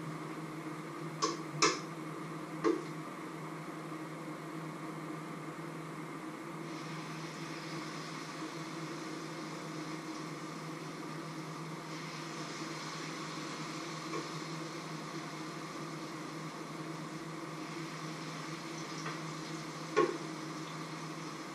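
Food frying in a pan, a steady sizzling hiss that grows fuller about a third of the way in, over a steady low hum. A spoon clinks against the cookware three times in the first few seconds and once near the end.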